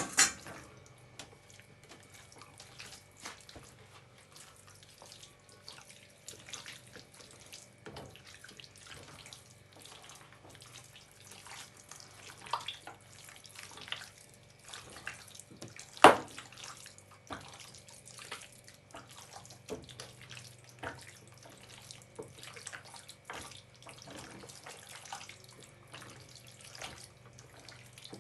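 Raw chicken wings being mixed by hand in an oily, wet marinade: irregular squelching and sloshing. A sharp knock stands out about halfway through.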